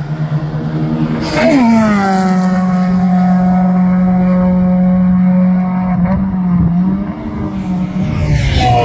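A car on a race track passes at speed, its engine note dropping sharply in pitch as it goes by, then holding a steady high-revving note as it runs away down the track. Near the end a second engine note drops in pitch as another car passes.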